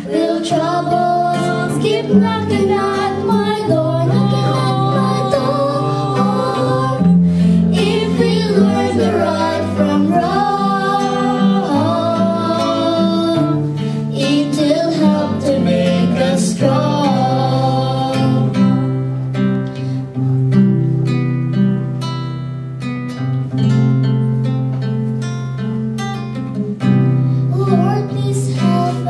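A song: voices singing a melody over plucked acoustic guitar and steady bass notes.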